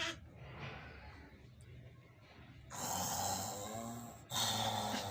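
A person making silly breathy noises with the mouth and nose as a deliberate weird sound: two long, rough blowing blasts, the first about three seconds in and the second, shorter and louder, near the end.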